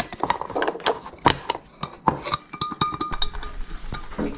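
Loose handle of a toy frying pan being tightened: a run of sharp clicks and light clinks as the pan and its handle fitting are worked.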